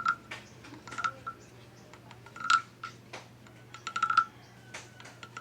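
Decorative wooden frog croaker played with its stick: about four or five short clicking rasps, each a quick run of clicks with a hollow wooden tone, spaced roughly a second apart.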